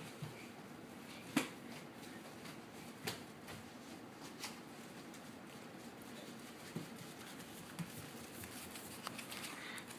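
Quiet room with a handful of faint, scattered clicks and knocks, spaced irregularly a second or more apart.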